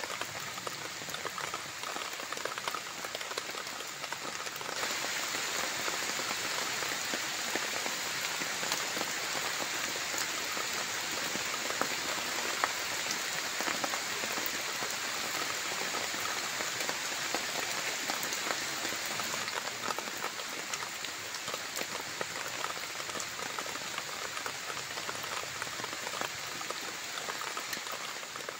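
Steady rain falling, a dense patter of drops on leaves and surfaces, a little brighter from about five seconds in.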